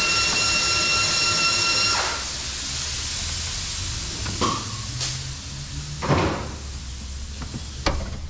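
A loud steady hiss with a high whistling whine cuts off about two seconds in. After it come a few short scrapes and knocks as a metal oil dipstick is pushed and worked into its tight tube.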